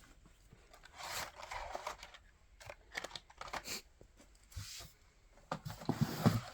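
Blister-packed die-cast toy cars being handled: plastic-and-card packaging rustling and crinkling in irregular bursts, with small clicks and taps as the packs knock together.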